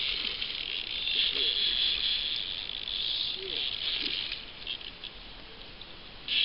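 Fishing reel buzzing as a hooked salmon pulls line off against the drag. It stops about two-thirds of the way through.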